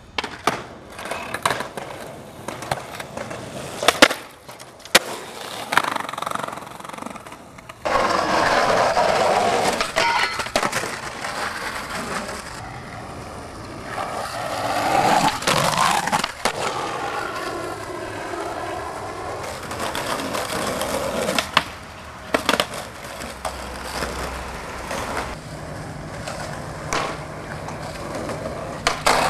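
Skateboard wheels rolling over pavement, with sharp clacks of the board striking the ground many times.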